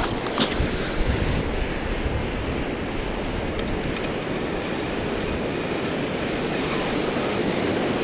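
Surf washing steadily onto the beach, with a few sharp clicks in the first half second.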